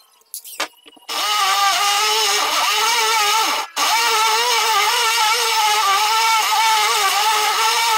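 Corded electric drill with a hole saw boring the doorknob hole through a wooden door. The motor runs steadily under load, its pitch wavering slightly as it cuts, stops for an instant partway through and then runs on. Two short clicks come just before it starts.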